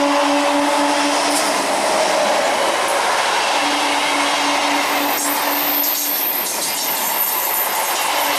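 Electric multiple unit (EMU) local train running past at close range: a loud, steady rumble of wheels on rail. A low droning tone pulses on and off in two spells, the first fading out in the opening seconds and the second returning a little past the middle, and in the second half a run of clicks and a high thin whine join in.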